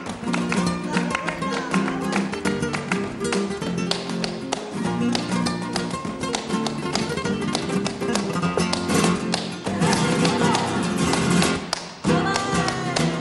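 Flamenco-style music with fast, strummed guitar and sharp percussive strokes. It drops out briefly about twelve seconds in.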